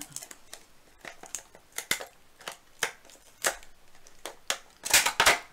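Clear plastic packaging crinkling and clicking as it is handled and pried open by hand, with a run of short crackles and a louder burst of crackling about five seconds in.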